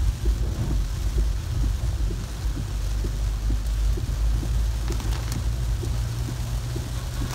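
Car cabin noise while driving on a rain-soaked road: a steady low rumble of engine and tyres on wet tarmac, with an even hiss of heavy rain on the car.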